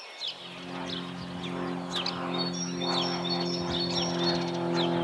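Birds chirping in short, falling tweets over a steady droning hum that grows gradually louder: the engine of an approaching cartoon airplane.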